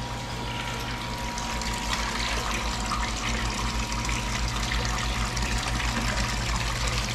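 Water running steadily, with a low hum underneath.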